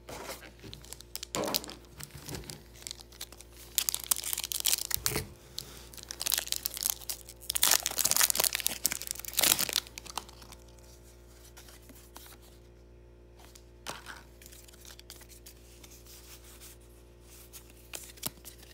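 Foil Pokémon booster pack being torn open and crinkled, in loud rustling rips from about four to ten seconds in, with a soft thump about five seconds in.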